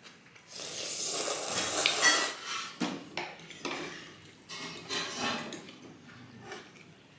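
Noodles slurped loudly for about two seconds, then chewing, with metal forks and spoons clinking now and then against ceramic bowls.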